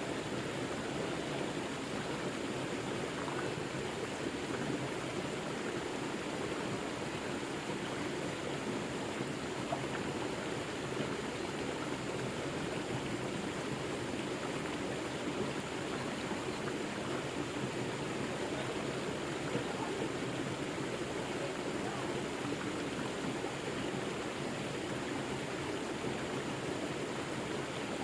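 River water flowing and rushing over rocks, a steady even rush without breaks.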